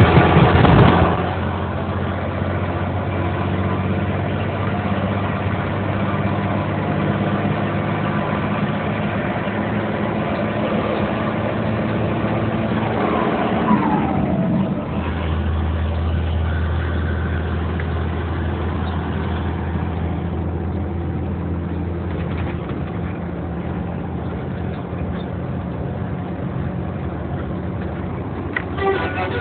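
Mercedes truck's diesel engine running through its exhaust. It is loud for the first second, then idles steadily, and its low note grows stronger about halfway through.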